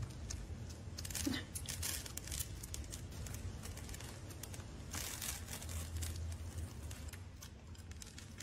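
Kittens eating dry cat kibble from a heaped bowl: irregular crunching and rattling of the pellets as they chew and dig their faces in, over a steady low hum.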